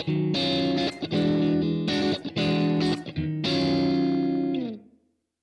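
Electric guitar chords played through a Blackstar AMPED 2 pedal amplifier set to its 6L6 power-valve response. Several chords are struck and held about a second each, and the last one dies away near the end.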